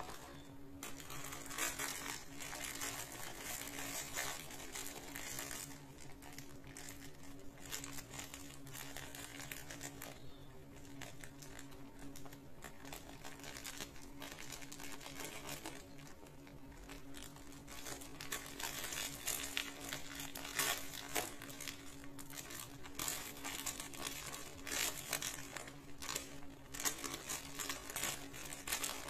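Plastic courier mailer bag crinkling and rustling as it is cut along its edge with scissors and then pulled apart by hand, in irregular bursts, over a faint steady low hum.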